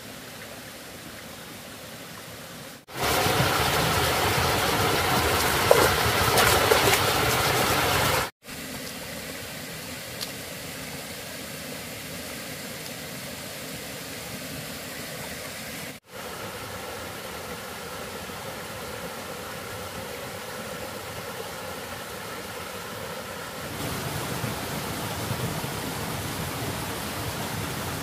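Running water of a shallow rocky forest stream, a steady rush that jumps louder for about five seconds near the start and changes abruptly three times where the footage is cut.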